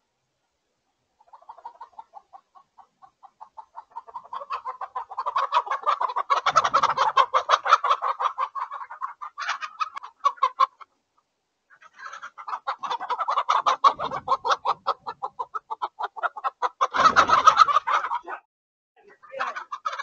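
Hens giving a fast, insistent run of alarm clucks that builds from faint to loud, breaks off for about a second midway, resumes, and ends with a short burst. It is the chickens' predator alarm at a fox prowling outside the run.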